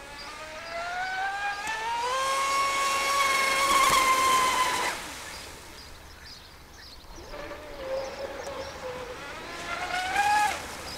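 RC racing catamaran's motor whining, rising in pitch as it accelerates, holding high for a few seconds and cutting off about five seconds in. A second whine rises again later and stops abruptly near the end.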